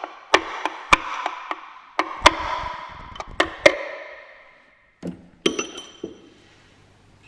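Repeated sharp strikes on a metal part that rings at the same pitch each time, roughly three a second, like a hammer knocking on a component during engine work. They stop about five seconds in, followed by a few lighter metallic clicks.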